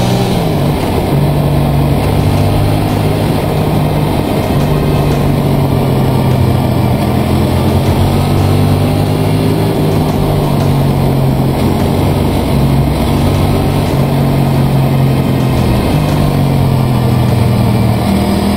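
Motorcycle engine running at a steady cruise, with wind and road noise. The engine note drops about a second in and changes again near the end, as with a throttle or gear change.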